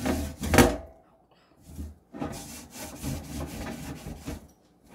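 Wire oven rack being scrubbed with an abrasive sponge: rough rubbing strokes, a couple of loud ones in the first second, a short pause, then a run of softer strokes.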